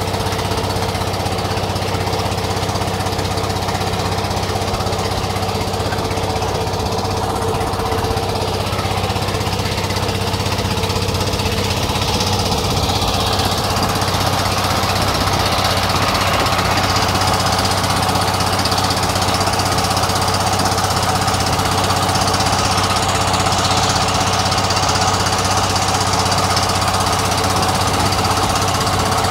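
Small engine of a wooden river boat running steadily under way, a constant even hum with no change in speed.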